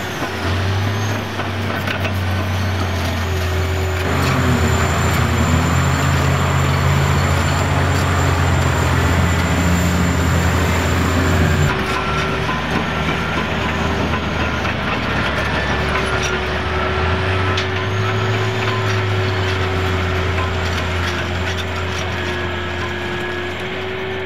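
Heavy diesel earthmoving machinery working: the engines of Komatsu PC1250 excavators and Caterpillar 777F haul trucks running under load, the engine note rising and falling, with scattered knocks. The sound changes abruptly about halfway through.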